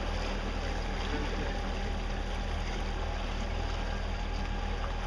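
Fishing boat's engine running steadily at low speed, heard from on board as a constant low hum with water and wind noise over it.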